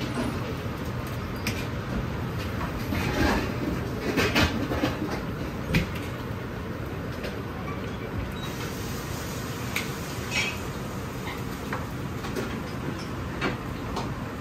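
A commercial gas wok burner running steadily under a wok of hot frying oil, with sizzling and the clinks and scrapes of a wire strainer against the wok as fried pieces are lifted out and drained.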